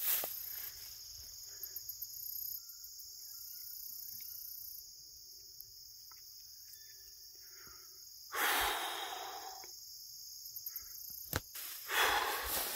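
Insects trilling in a steady, high-pitched chorus, with a few faint bird chirps. About eight seconds in comes a loud heavy exhale, and a sharp click follows near the end.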